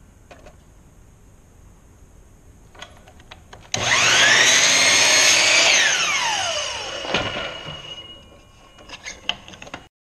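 Electric miter saw switched on about four seconds in, its motor whining up to speed and running for about two seconds as the blade is brought down through a small piece of wood stock. It then winds down in a falling whine over about a second. A few light clicks and knocks follow near the end as the wood is handled.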